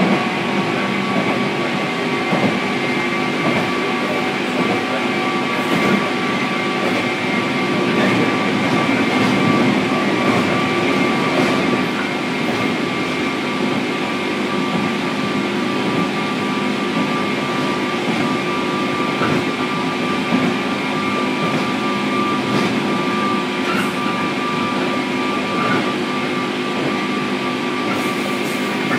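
JR Kyushu 103 series (103-1500) electric train running at speed between stations, heard from inside motor car KuMoHa 103-1512: a steady rumble of wheels on rail with a constant high whine and a few faint clicks.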